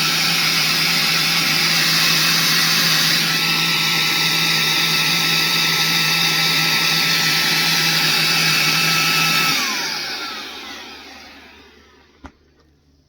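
Motor of a SilverHolder 3-in-1 handheld cordless vacuum running at its high speed as an inflator, blowing air into a pool floaty with a steady whine. About nine and a half seconds in it is switched off and winds down, its pitch falling as it fades. A single faint click follows near the end.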